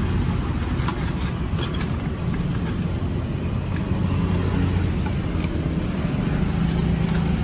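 Steady low rumble of a running engine, with a few faint clicks and taps.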